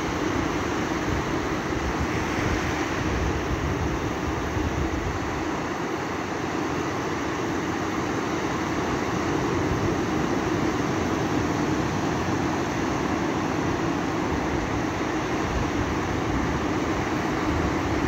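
Sea surf on a sandy beach: small waves breaking and shallow water washing up the shore, a steady rushing wash with a low rumble underneath.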